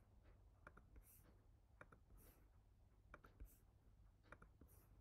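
Near silence with faint computer mouse clicks, often in pairs, coming roughly once a second as arrows and a checkbox are clicked on screen.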